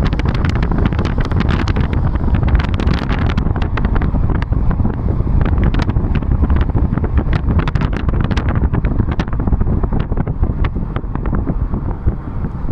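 Road noise and wind from a moving car: a steady low rumble, with frequent short crackles of wind buffeting the microphone.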